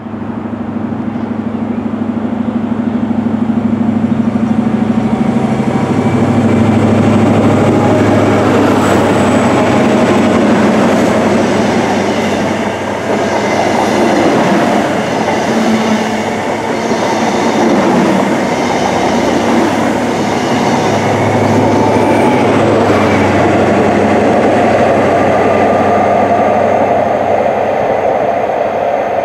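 An HST (InterCity 125) passing: the leading Class 43 power car's diesel engine comes first, then a long rumble and clatter of the Mark 3 coaches' wheels on the rails. About two-thirds of the way through, the engine of the rear power car goes by, and the rumble carries on as the train draws away.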